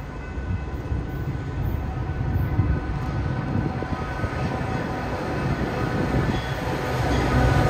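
Metra F40PH diesel locomotive approaching with its commuter train, a low engine and rail rumble growing steadily louder as it nears.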